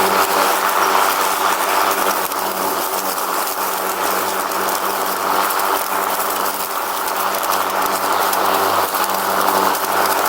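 Riding lawn mower running steadily at working speed: an even engine hum with a constant mechanical rattle and clatter over it.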